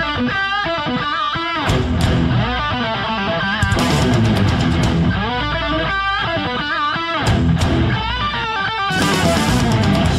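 Rock intro music: an electric guitar plays a lead melody with wavering, bent notes over a steady, heavy bass and drum backing.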